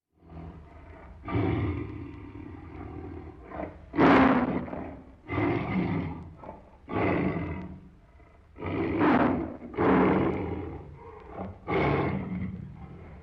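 Tiger roaring and growling in a series of about seven rough, loud calls, the loudest about four seconds in.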